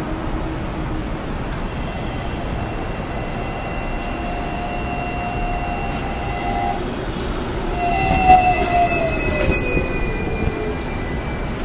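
Hong Kong double-decker electric tram rounding a curve, its steel wheels squealing on the rails in several high tones over a low rolling rumble. It is loudest as it passes about eight seconds in, when one squeal tone slides down in pitch.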